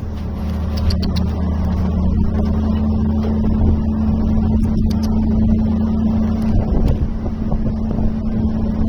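Engine of a large piece of equipment running at a steady speed, a constant low hum with a few faint clicks over it.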